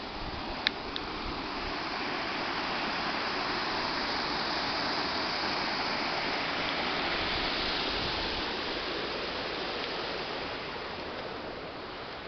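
Water rushing over a small pond dam: a steady rush that swells towards the middle and eases off near the end. A single sharp click sounds about a second in.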